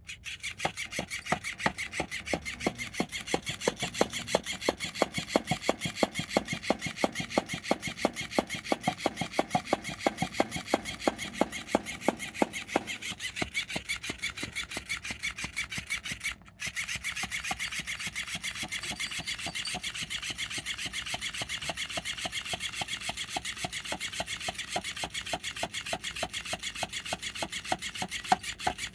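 Repaired battery-powered moving toy running, its mechanism making a fast, even, rasping click. It breaks off for a split second about two-thirds through, then carries on.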